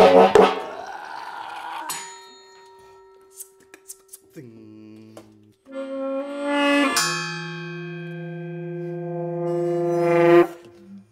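A loud percussive crash at the start rings out for about two seconds. Then a tenor saxophone plays sustained low notes, the last one long and swelling louder before it stops abruptly.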